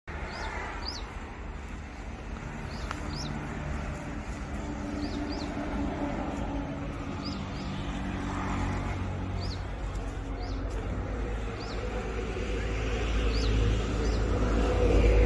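Low, steady rumble of a diesel truck engine, growing louder toward the end, with birds chirping repeatedly in short high notes above it.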